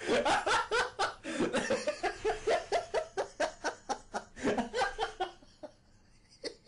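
A person laughing hard in quick repeated bursts, about four a second, dying away about five and a half seconds in.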